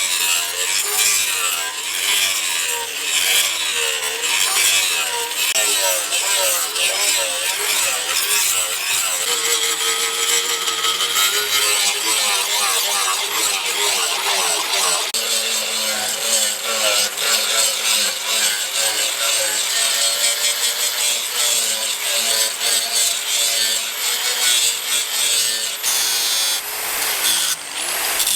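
Continuous sawing or grinding of a tool working the workpiece, with a wavering pitch.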